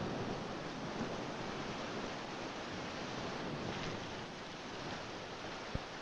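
Steady rushing wash of surf, sea water moving over a rocky shore, easing off slowly, with a faint click near the end.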